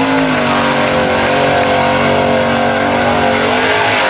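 Lifted SUV's engine revved hard and held at high revs under load through the mud course, easing off near the end.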